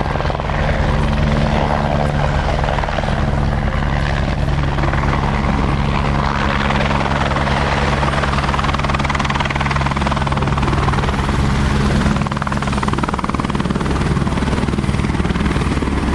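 Helicopter running close by: a loud, steady engine hum with the fast, even chop of the rotor blades.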